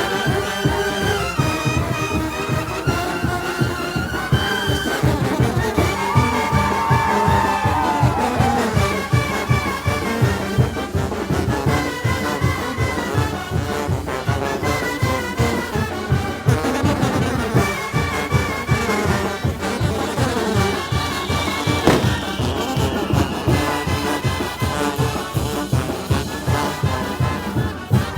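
Mexican banda brass band playing: trumpets and trombones over a steady, driving drum beat.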